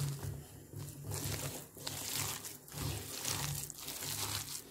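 A hand mixing thick, coarse-ground chana and toor dal vadai batter with chopped onion, green chilli and coriander in a steel bowl: repeated wet squishing strokes, roughly two a second.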